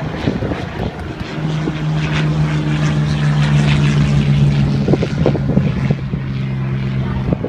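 Propeller aircraft flying a low pass, its engine drone steady in pitch, swelling to loudest about four seconds in and then easing off.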